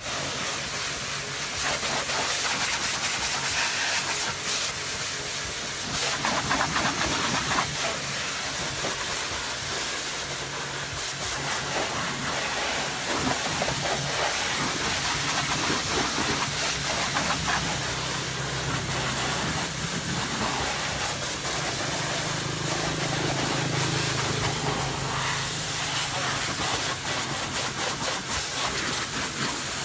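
A high-pressure washer jet hisses steadily as it sprays water over a motorcycle's underside and wheels. A low steady hum runs underneath and is stronger in the second half.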